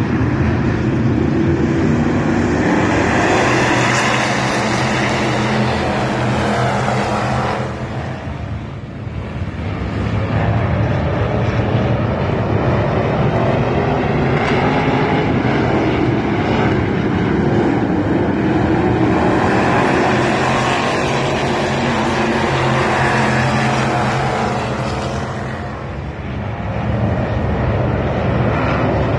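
A pack of street stock race cars running hard around an oval track, a dense continuous engine noise that rises and falls as the field passes. It drops away twice, about eight seconds in and near the end, as the cars go to the far side of the track.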